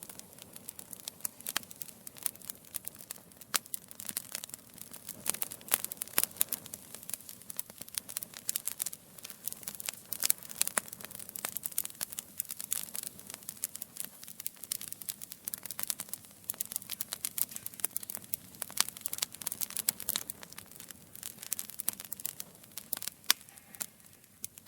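Fire burning, with dense, irregular crackles and sharp pops over a soft steady hiss.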